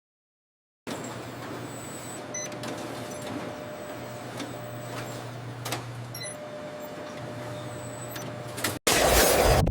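Factory machinery running with a steady whir and a low hum that switches on and off, with occasional light clicks. Loud electronic music cuts in near the end.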